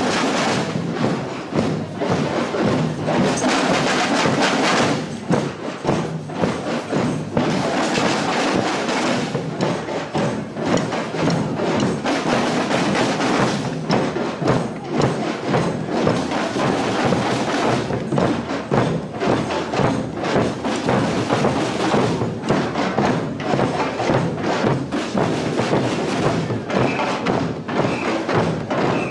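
A parade percussion band plays a steady, dense drum rhythm.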